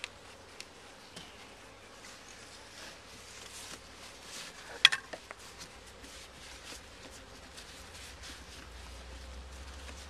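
Honey bees buzzing faintly around the hive while gloved hands handle the hive's strap and lid. A sharp click comes about five seconds in, followed by a couple of smaller clicks.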